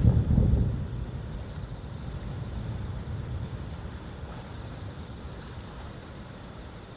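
Fireworks finale: the last shell bursts boom heavily in the first second, then their low rumble and echo die away slowly.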